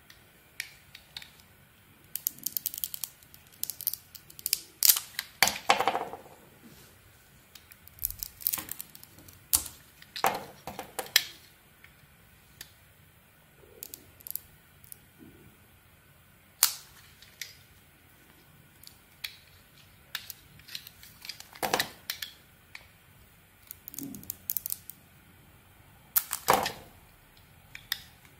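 A snap-off utility knife blade cutting and prying into a bar of soap, with sharp crackling clicks and snaps as pieces of its hard outer layer break away. The crackles come in irregular clusters with short quiet pauses between.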